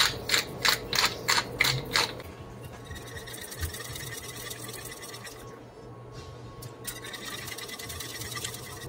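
Wooden pepper mill grinding in quick twists, about three crunchy strokes a second, for the first two seconds. Then a wire whisk stirring steadily through thin white sauce in a stainless steel saucepan, a soft continuous scraping that eases briefly in the middle.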